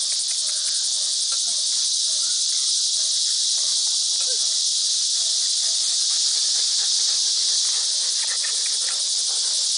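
Steady, high-pitched chorus of insects on an early summer evening. Faint short scuffling and vocal sounds from Doberman puppies tussling over a tug toy come and go beneath it.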